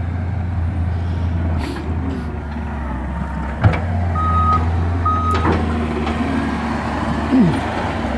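Skid steer working at final grading: its diesel engine runs with a steady low drone while the backup alarm gives two beeps about four seconds in as it reverses. A couple of sharp metallic knocks come from the machine.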